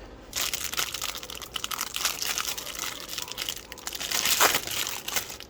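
Plastic wrapping crinkling and crackling as it is handled and pulled away, with a louder crackle about four and a half seconds in.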